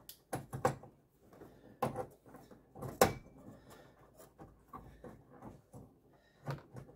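Scattered plastic clicks and knocks as a 9012 headlight bulb and its wiring are worked into the back of the headlight housing, the sharpest knock about three seconds in.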